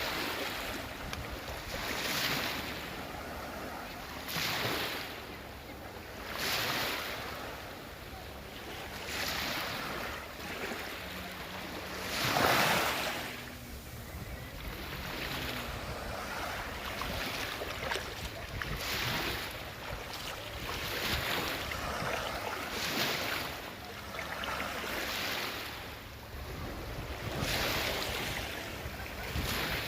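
Small sea waves washing onto the shore, a swell rising and falling about every two seconds, with wind rumbling on the microphone.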